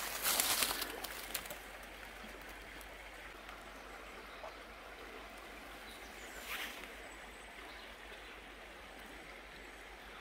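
Shallow river water flowing steadily past the rocks and bridge piers, an even low rush. A burst of rustling and crackling opens the first second and a half.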